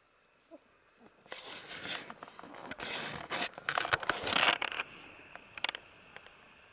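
Close rustling and scraping with scattered sharp clicks for about three and a half seconds, loudest in the middle: handling noise against the microphone as a hand moves in beside the camera. A few single clicks follow near the end.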